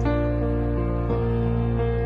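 Slow, soft instrumental karaoke backing track playing sustained chords, the chord changing about a second in.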